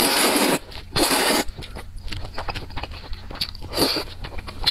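A person slurping up a mouthful of noodles in two loud slurps about a second apart, then chewing, with another short slurp near the end.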